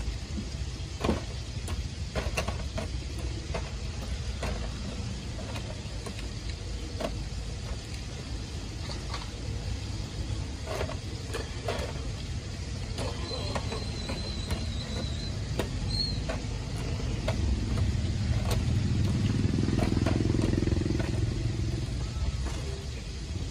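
Light clicks and scrapes of metal tongs picking up crispy fried chicken skin and dropping it into paper cups, over a steady low rumble of street traffic that grows louder for a few seconds near the end.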